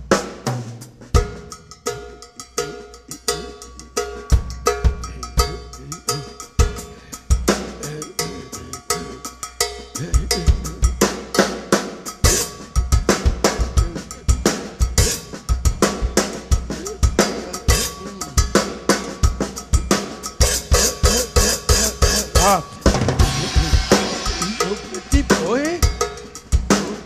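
Drum kit playing a busy Latin-flavoured groove with cowbell over bass drum, snare and rim clicks, a steady unbroken stream of strokes that turns brighter and denser near the end.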